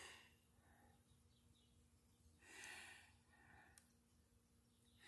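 Near silence: faint room tone, with a soft puff of noise about two and a half seconds in.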